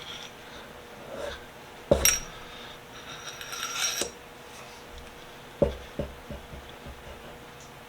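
Light metal clinks and knocks with some scraping as a screwdriver's steel shaft is worked back into its wooden handle; two sharper knocks about two and five and a half seconds in.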